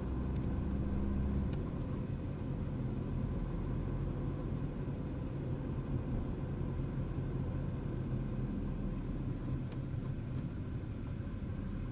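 A Ford car's engine and tyres running steadily at low road speed, a low hum. The note dips slightly about a second and a half in.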